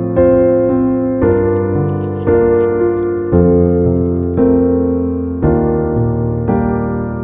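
Background piano music: soft sustained chords struck about once a second, each fading before the next.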